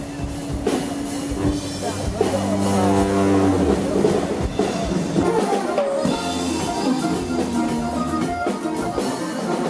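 Live norteño-banda music: a sousaphone playing low bass notes over a drum kit keeping a steady beat.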